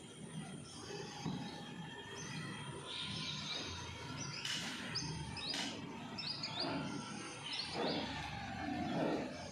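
Small birds chirping in short bursts, mostly around the middle, over a low rustling background, with a couple of sharp knocks about halfway through.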